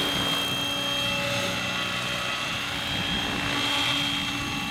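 Radio-controlled scale Robinson R22 model helicopter flying low, its motor and rotors running steadily with a constant high whine.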